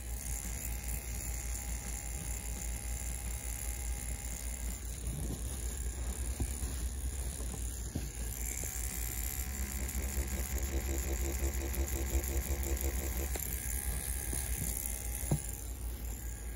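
CNC P6 rotary tattoo pen machine running steadily, a low electric buzz from its motor and needle stroke while stippling. A faint higher hum joins in for a few seconds in the middle.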